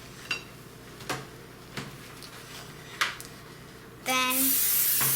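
A few light clicks and taps of kitchen utensils and dishes, then about four seconds in a loud steady hiss starts abruptly.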